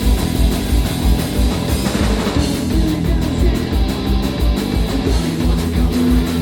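Punk rock band playing live, instrumental: distorted electric guitars and bass over a steady kick-drum beat and cymbals.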